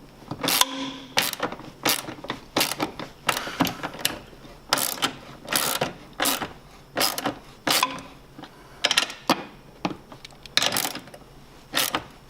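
Hand ratchet wrench clicking in short repeated strokes, about one or two a second, as it snugs up the nuts on the bumper mounting bolts.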